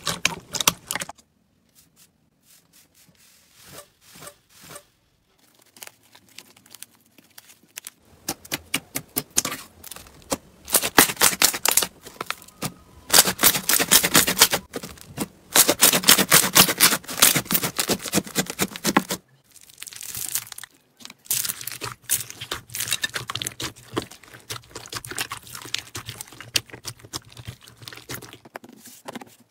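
Hands squeezing and kneading slime, making rapid crackling and popping that comes in loud spells, with a faint stretch of several seconds near the start.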